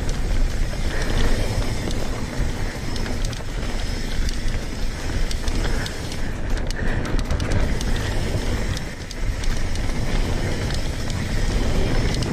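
Mountain bike riding fast down a packed-dirt singletrack: tyres rolling over the dirt, with wind rumbling on the camera microphone. A cluster of sharp rattles and clicks from the bike over bumps comes about halfway through.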